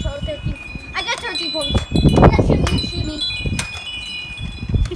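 Metal wind chimes ringing, several high tones struck at different moments and ringing on over each other. A child's short call about a second in, and a loud burst of noise around two seconds in, the loudest moment.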